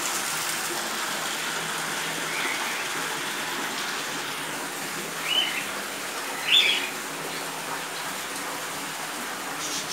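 Steady rushing hiss of running water, with two short bird chirps about five and a half and six and a half seconds in.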